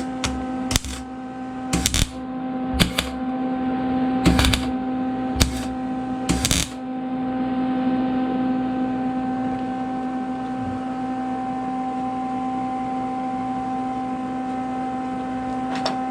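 MIG welder tack-welding a steel patch panel: about six short crackling bursts during the first seven seconds, over a steady electrical hum.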